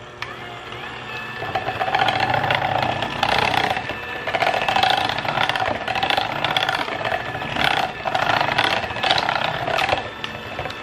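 Electric hand mixer running in a bowl, beating wet muffin batter with mashed banana, its motor hum wavering as the beaters move through the bowl. It builds over the first couple of seconds.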